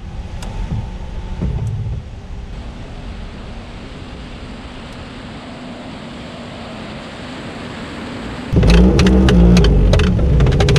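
Steady rushing airflow noise of a glider in flight. About eight and a half seconds in it jumps to a much louder low rumble with crackling.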